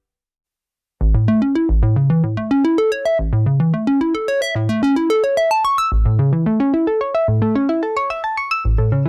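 Arturia PolyBrute analog polyphonic synthesizer playing a fast arpeggio: short plucked notes climbing in quick runs, each run starting on a low bass note and repeating over and over. It starts about a second in, after a moment of silence.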